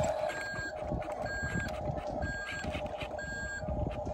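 Toy RC dump truck's reversing beeper sounding short beeps about a second apart while it backs up, over the steady hum of its drive.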